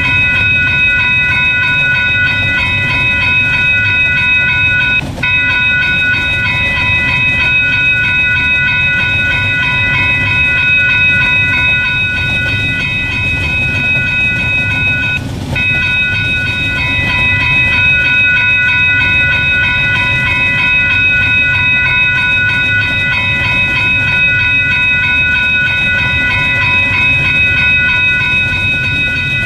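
Train rolling past: a loud, steady rumble of the cars with a steady high-pitched ringing tone over it, which dips briefly twice.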